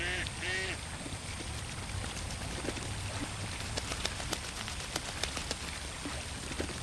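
A duck quacking twice in the first second, then small drips and splashes of water on the pond surface over a low steady rumble.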